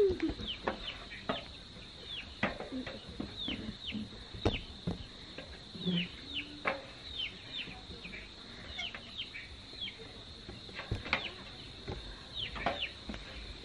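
Chickens calling: many short peeps that slide downward in pitch, with occasional low clucks, over a steady high insect hum. A few sharp knocks sound now and then.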